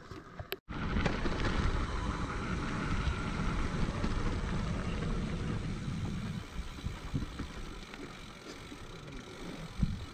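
Mountain bike rolling down a dirt trail: steady wind buffeting on the camera microphone over tyre rumble and rattling from the bike, starting suddenly after a brief cut-out near the start and dropping away about six seconds in, leaving a quieter background with a few small knocks.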